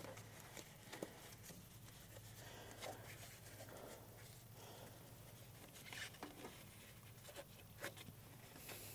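Faint scuffs and small clicks of hands fitting and pressing foam insulation around refrigerant tubing, over a low steady hum.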